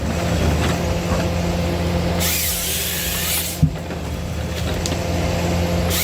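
Engine of a heavy machine running steadily with a low hum, a burst of hissing about two seconds in, and a single sharp click about halfway through.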